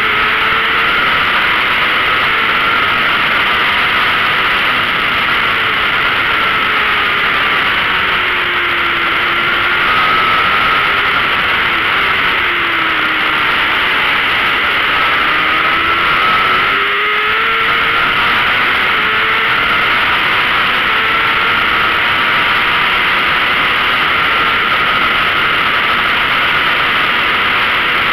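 600 cc sport bike engine running hard at racing speed under heavy wind rush. Its note falls while the bike leans through a corner and climbs again as it drives out onto the straight, with a short break in the engine note about two-thirds of the way in.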